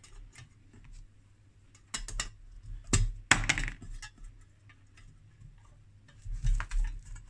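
Small metallic clinks and knocks from hands handling the copper-plated inner plate of a cavity filter and its wiring: a few sharp ones about two and three seconds in, and a quick cluster near the end.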